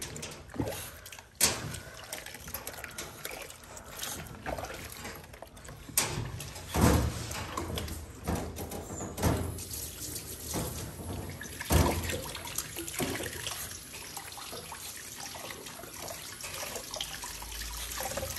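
Water splashing and trickling in a plastic tub of soapy water as a small dog is washed and rinsed with a grooming sprayer, with a few sharp knocks now and then.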